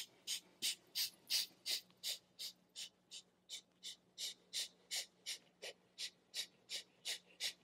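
A woman's voice making a soft, rapid run of short breathy 'shh' hushing sounds in an even rhythm, about three a second.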